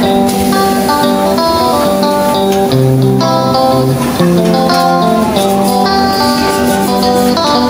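Background music: plucked guitar playing a melody over chords.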